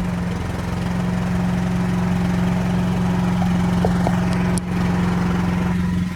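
Gasoline generator engine running steadily at constant speed shortly after a choke start, the choke now pushed back off. A short click about four and a half seconds in.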